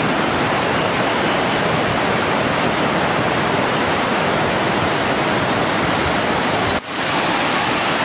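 A river in flood rushing by in a steady, loud, dense roar of churning water. It drops out for an instant near the end.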